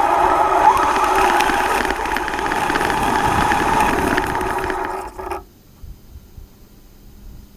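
Traxxas Slash RC truck running, its electric motor and drivetrain whining steadily over tyre and ground noise, heard from a camera mounted on the truck. The sound cuts off suddenly about five seconds in, leaving only a faint low hum.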